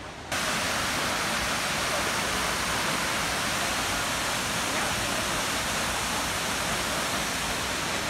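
Steady rush of falling water from a large waterfall (Tad Yuang) crashing into its plunge pool. It cuts in suddenly just after the start and holds at an even level.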